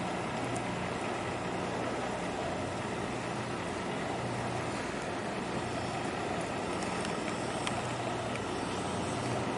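A steady low engine hum, even and unchanging, with wind and the wash of choppy harbour water.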